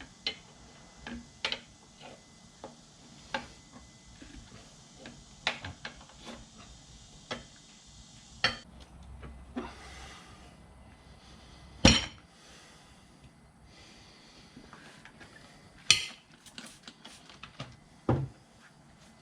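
Metal tools clinking and knocking against a motorcycle wheel during a DIY tire change, in scattered sharp strikes with two louder clanks about twelve and sixteen seconds in.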